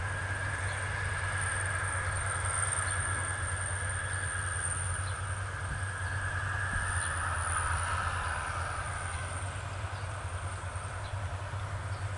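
Maxxi Bimo 102L rice combine harvester running while cutting and threshing: a steady engine and machinery drone with a thin, wavering high whine over it.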